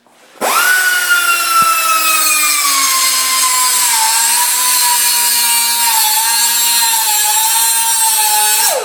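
Pneumatic air grinder running flat out: a loud, high whine over hissing air that starts about half a second in and sinks slowly in pitch over the first few seconds. Near the end it is released and winds down with a falling whine.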